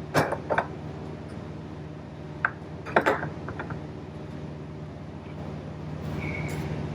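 Hammer blows on a punch driving a bearing race out of a John Deere 24T baler's wheel hub: a few scattered metallic strikes, the loudest about three seconds in, over a steady low hum.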